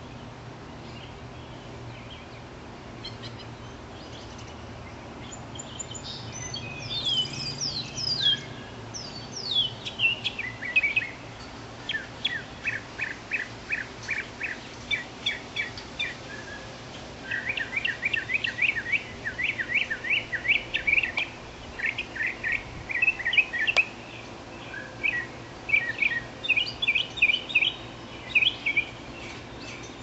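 Small songbird singing: rapid runs of high chirps and down-slurred notes in phrases with short pauses, starting about six seconds in.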